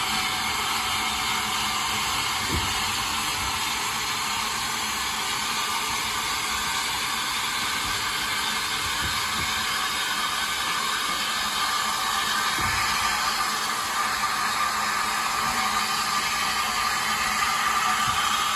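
Steady hiss of steam escaping from a small tank engine, growing a little louder in the last few seconds.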